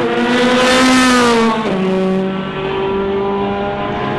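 Ferrari 458 GT race car's V8 engine running hard. Its note falls gradually, drops abruptly in pitch about a second and a half in, then holds steady at the lower pitch.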